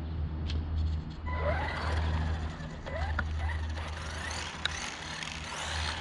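Arrma Mojave Grom electric RC truck's motor whining in repeated rising bursts as it accelerates away, over a hiss of tyres on asphalt. A steady low hum runs underneath, and there is a single sharp click about four and a half seconds in.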